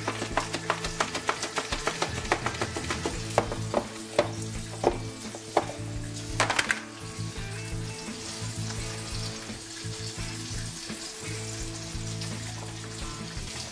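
Breaded bone-in pork chop frying in hot oil, crackling with many sharp pops for the first several seconds, then settling to a softer, steady sizzle.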